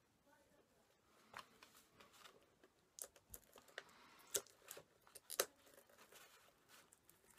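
Faint crinkling and tearing of packaging being opened by hand, with scattered sharp crackles a few seconds in.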